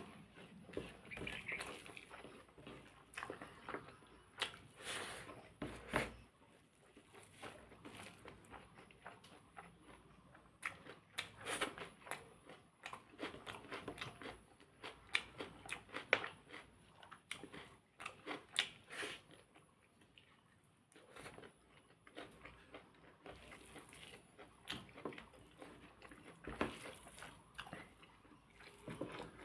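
A person eating, with close-up chewing and biting: irregular wet, crunchy mouth sounds and clicks.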